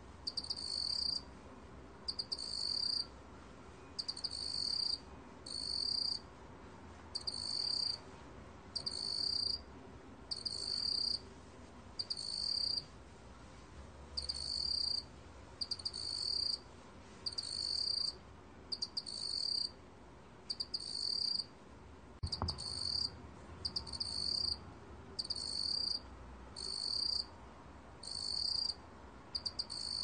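A 먹귀뚜라미 field cricket singing at 23 °C: high-pitched chirps of rapid pulses, about one a second and each just over half a second long. One soft knock sounds about two-thirds of the way through.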